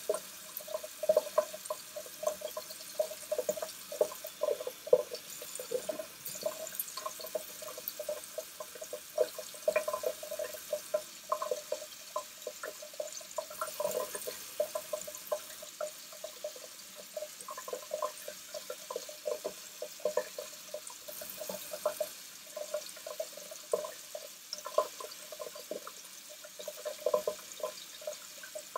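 Straight razor, a Greaves wedge, scraping through lathered stubble in short strokes: a steady run of small crackles as the whiskers are cut.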